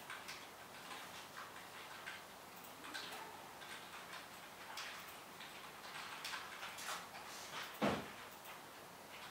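Faint, irregular clicking and ticking, with one louder knock near the end.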